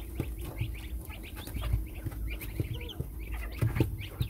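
Newly hatched chukar partridge and domestic chicken chicks peeping: many short, high, falling peeps overlapping in quick succession.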